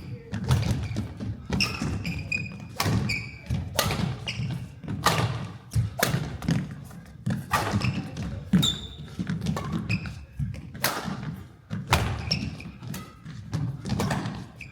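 A badminton rally: rackets strike the shuttlecock about once a second, with feet thudding and court shoes squeaking on the floor between the hits.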